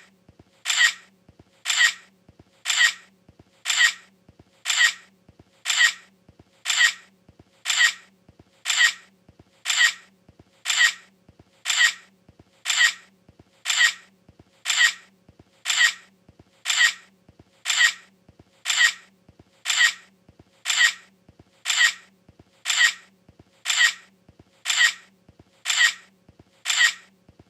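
iPhone camera shutter sound effect, repeating evenly about once a second, each a short sharp click.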